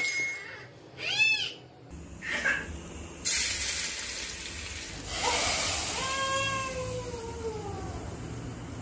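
Hot oil sizzling with a steady hiss as tempering fries in a small steel pan, starting about three seconds in. Over it come a few short high wavering cries in the first seconds and one long falling cry near the end, like a cat meowing.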